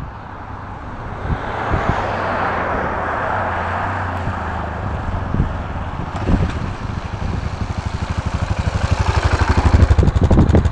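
Yamaha MT-03 motorcycle being ridden past. Its engine noise grows louder through the second half and turns into a fast, even throbbing that is loudest near the end.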